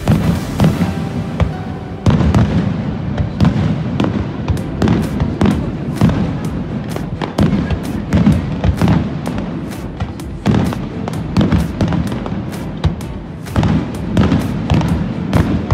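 Aerial firework shells bursting in quick succession: a dense run of sharp bangs and crackles, about two a second, over a continuous low rumble.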